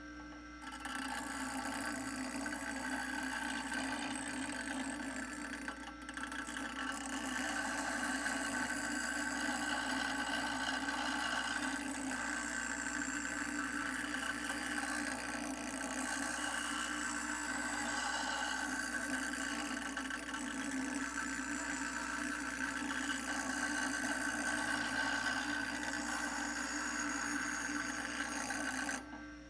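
Electric grinder with an abrasive wheel running steadily while working a steel square key, a continuous motor whine with grinding noise; it shuts off near the end.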